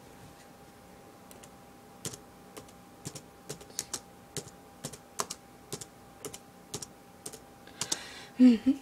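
Typing on a laptop keyboard: separate keystrokes about two a second, with a short, louder burst of voice near the end.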